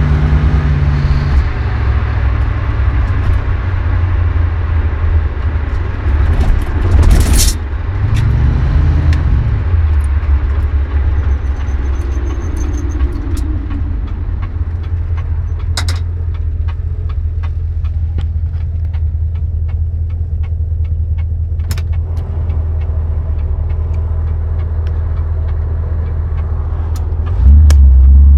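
1973 Dodge Dart's 318 V8 and 904 automatic transmission running with a steady low drone, a brief loud rattle about seven seconds in, and scattered sharp clicks through the middle. The engine note steps up near the end.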